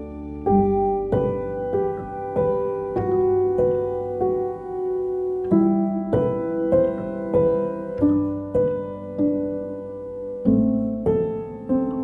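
Background piano music: a steady line of notes struck about every half second over low notes that change every few seconds.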